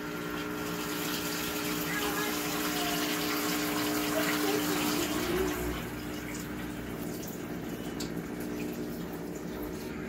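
SPT countertop dishwasher running, its pump humming steadily while water splashes into the stainless-steel sink through its hose. The sound eases slightly about six seconds in.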